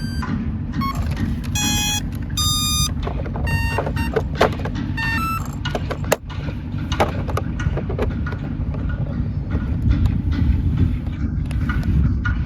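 A run of short electronic beep tones from a FLISHRC RC helicopter as it powers back up after compass calibration, mostly in the first half, with scattered clicks. A steady low rumble runs beneath.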